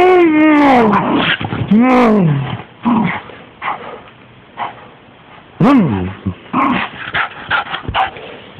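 A dog vocalizing: a long call that rises and falls in pitch, a second call falling away about two seconds in, then a scatter of shorter yelps and barks.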